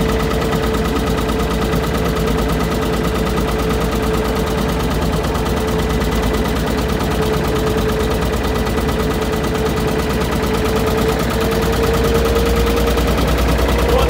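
Motor boat engine running steadily at low speed under the load of towing a sunken car, with a rapid, even beat and a steady whine that rises slightly in pitch near the end.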